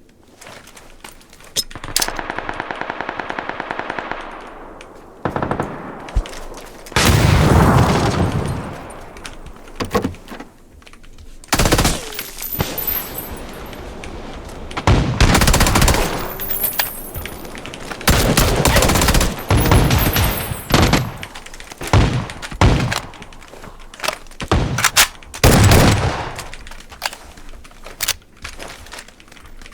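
Gunfire in a first-person shooter game: repeated bursts of automatic weapon fire, one of them a long rapid string of shots early on, with louder blasts between.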